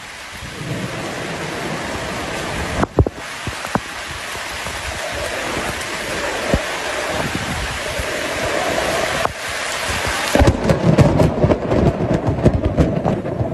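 Steady rushing noise of wind buffeting the microphone, with surf behind it, broken twice by short gaps. From about ten seconds in it turns gustier, with rapid crackles.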